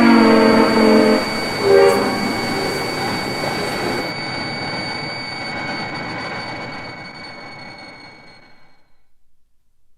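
Rodan sound effect: a loud, held horn-like blare of several steady tones cuts off about a second in, and a short pitched cry follows near two seconds. After that a rushing rumble fades away over several seconds.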